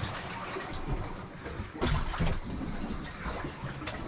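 Seawater sloshing and washing around the holed hull of a sailboat aground on rocks, heard from inside its cabin. A knock sounds about two seconds in and a fainter one near the end.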